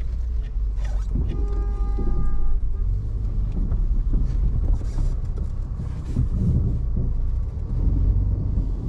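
A moving road vehicle with a steady low rumble of engine, road noise and wind on the microphone. A vehicle horn sounds once, a little over a second in, lasting about a second.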